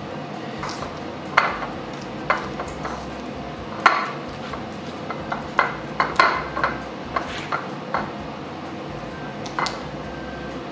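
A metal utensil clinking and scraping against a ceramic bowl and plate as grated cheese is scraped out and mixed into soft butter: about a dozen irregular light knocks and clicks, the loudest about four seconds in.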